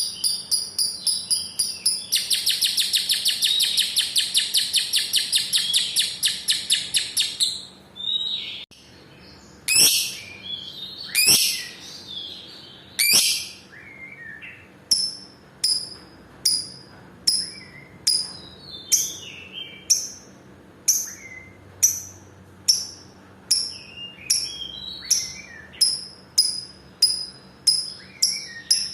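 Lovebird singing its 'ngekek': a fast, dense, high-pitched chattering trill held for about five seconds. After a short break it gives a few louder calls, then sharp single chirps repeated about once a second.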